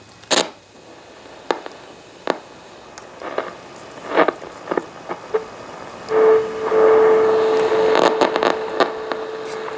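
Clicks and knocks of a 1965 Philco portable radio being handled and tuned, then about six seconds in, shortwave static with one steady tone: the WWV time-signal station on 10 MHz coming in weakly.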